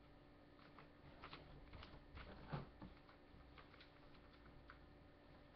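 Near silence with a few faint, scattered clicks and crackles of a sheet of paper being folded and creased by hand on a wooden table.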